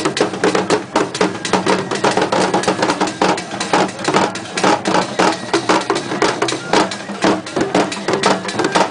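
Crowd voices over fast, irregular percussive strikes, many a second.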